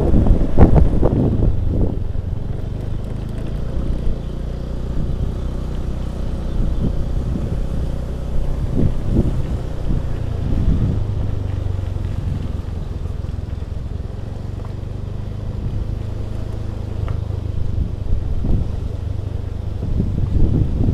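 Small motor scooter engine running steadily while riding, with wind buffeting the microphone in strong gusts during the first couple of seconds and again briefly later.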